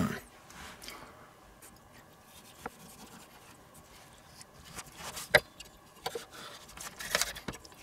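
Kitchen knife cutting into a firm slab of smoked bacon on a wooden cutting board: quiet scraping strokes with a few sharp knocks, the loudest about five seconds in, and a short rasping saw stroke near the end.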